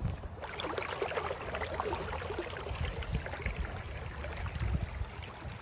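Creek water running and babbling steadily, starting a moment in.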